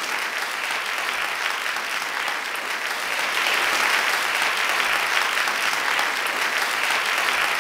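Crowd applause, steady clapping laid over the award title cards as an added applause track, starting to fade near the end.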